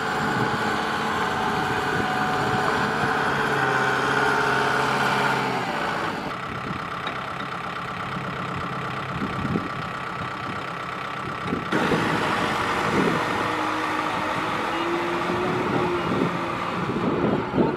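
Kubota M6040SU tractor's diesel engine running steadily while working in deep mud, its revs dropping about five seconds in. The engine sound then carries on through abrupt changes in the sound.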